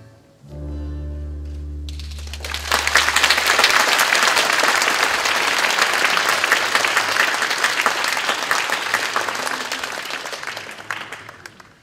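The music ends on one held low note, and about two seconds in the audience breaks into applause. The applause fades away near the end.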